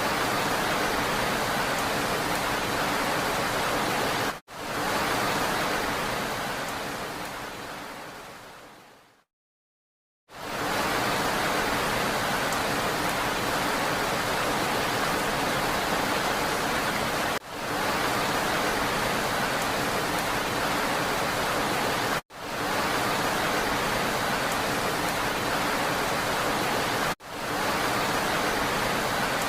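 Steady hiss of rain, even and without distinct drops. About four seconds in it fades away over several seconds to a second of silence, then cuts back in, and it drops out briefly three more times where the loop is spliced.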